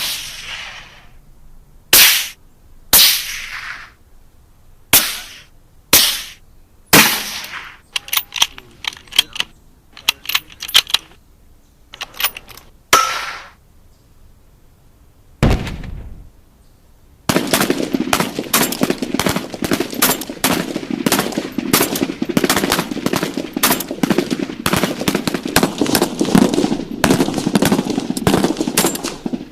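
Gunfire sound effects. Single sharp shots about a second apart give way to short quick bursts, and a deeper boom sounds just past halfway. The last twelve seconds are continuous rapid automatic fire.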